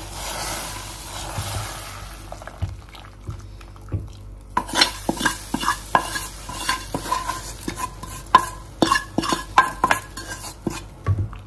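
Ghee-fried vermicelli being stirred in a pan: a soft sizzle at first, then a spoon clicking, tapping and scraping against the pan many times.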